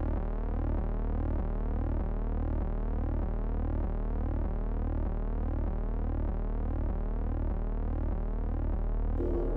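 Synthesizer tone with a steady low hum under pitched sweeps that repeat about twice a second.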